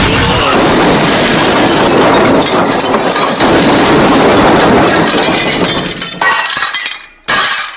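Long cartoon crash sound effect: continuous loud smashing and clattering, like breaking glass and tumbling debris, that thins out near the end with one last short crash.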